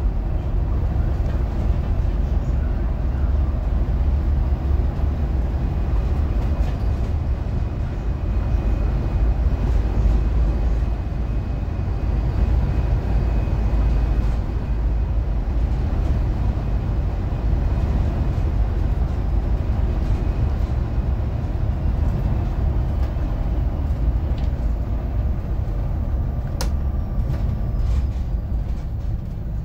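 A city bus on the move, with a steady low rumble of engine and road noise. A single sharp click comes near the end.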